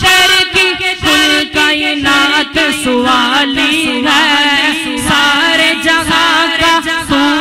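Devotional naat singing without words: a voice carrying a melody over a low sustained backing hum, with a regular beat about twice a second.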